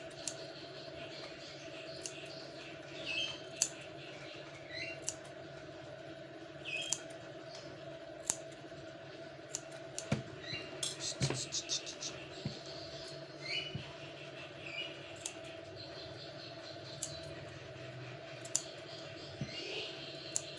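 Sharp clicks of nail clippers snipping a cat's claws, one every second or two, with a quick run of clicks about halfway through. A steady hum and a few short high chirps sit underneath.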